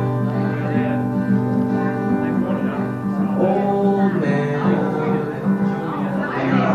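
Live acoustic guitar played by a solo performer, a song passage with held chords and little or no singing.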